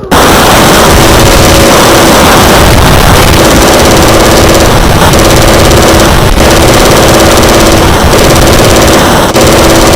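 A sudden, very loud, distorted machine noise cuts in all at once. It has a steady hum that breaks off briefly every one and a half to two seconds.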